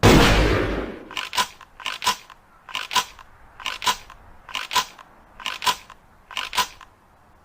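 Ithaca Model 37 pump-action shotgun firing one loud shot at the start, its blast dying away over about a second. Then comes metallic clicking from the gun's action: seven pairs of sharp clicks, about one pair a second.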